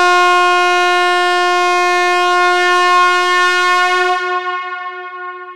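Handheld compressed-gas air horn giving one long, loud, steady blast that fades out near the end.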